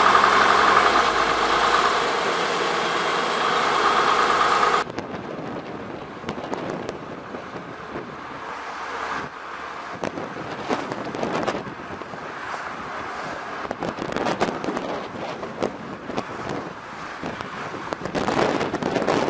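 Road and traffic noise from a moving vehicle. A steady pitched hum cuts off abruptly about five seconds in, giving way to noisier road sound with crackling wind buffeting on the microphone.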